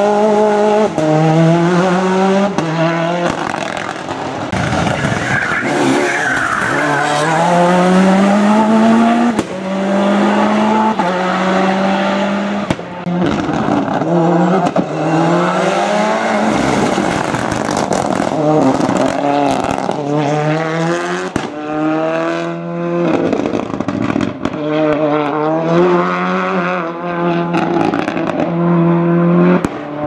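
Ford Escort WRC and Escort RS Cosworth rally cars' turbocharged four-cylinder engines revving hard through the gears, the pitch climbing and dropping in repeated steps, with sharp cracks between shifts and some tyre squeal.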